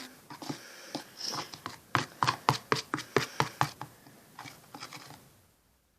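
Stirring a thick mix of white glue, paint and glitter for slime in a container: a quick run of clicks and knocks from the stirrer against the container, which stops suddenly about five seconds in.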